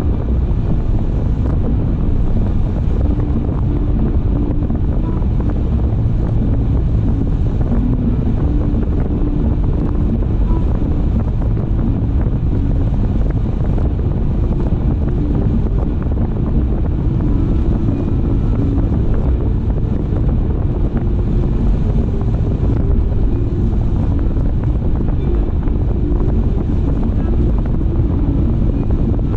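A car driving along at a steady speed, with a continuous low rumble of road and wind noise.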